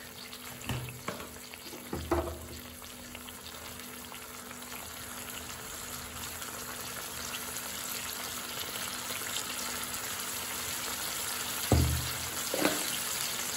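Onions and ground spice paste frying in mustard oil in a kadai: a steady sizzle that slowly grows louder. A few short knocks come about two seconds in and twice near the end.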